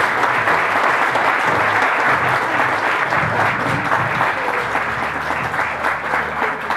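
Audience applauding, a steady round of many hands clapping that eases off slightly near the end.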